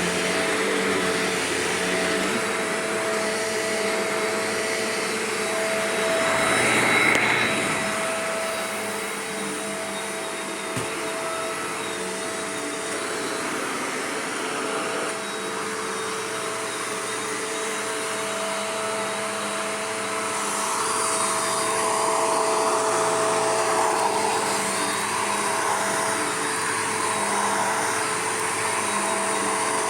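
Shark Rotator upright vacuum cleaner running steadily, a continuous whooshing motor noise with a steady two-note hum; it gets louder briefly about seven seconds in and again from about twenty seconds in.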